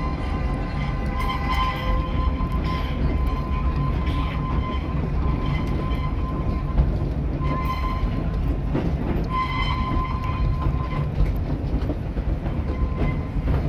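Steam-hauled park passenger train running, heard from aboard the coach: a steady rumble of wheels on rails, with a thin high tone that comes and goes several times.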